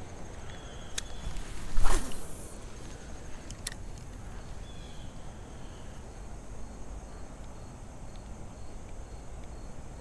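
Insects chirping steadily and evenly in the background of a quiet creek. A single brief, loud swish falling in pitch comes about two seconds in, with a couple of faint clicks.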